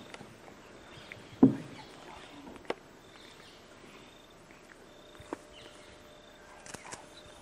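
A single loud thump about a second and a half in, followed by a few sharp clicks.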